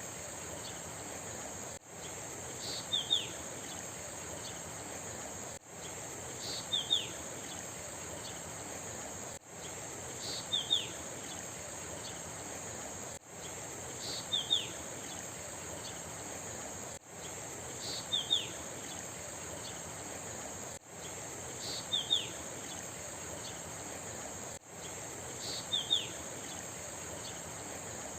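A steady high insect drone over a constant rushing-water hiss, with a bird giving a quick cluster of two or three short falling chirps about every four seconds. The whole pattern is a short recording looped, with a brief dip in level each time it restarts.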